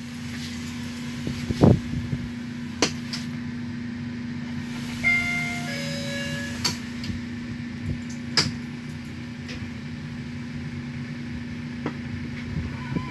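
Elevator car travelling down between floors: a steady low hum from the lift drive, with a few sharp clicks and knocks from the car and its guides, and a few brief faint tones about five seconds in.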